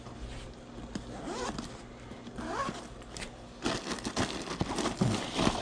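A fabric motorcycle saddlebag's zipper is pulled open in two short runs. About halfway through, louder rustling and crinkling follows as the plastic-wrapped contents are handled.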